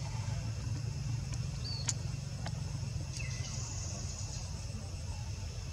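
Outdoor ambience: a steady low rumble with a few short, high chirps from small animals, a sharp click about two seconds in, and a brief hiss a little after three seconds.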